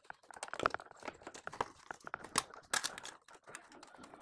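Pliers scraping and clicking on the plastic cable gland of a welding machine's power cord as it is pried and twisted loose from the casing: a run of irregular small clicks and crackles.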